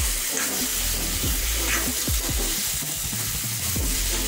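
A steel spoon stirring and scraping chicken masala filling around a hot black kadai, the food sizzling as it fries, over background music.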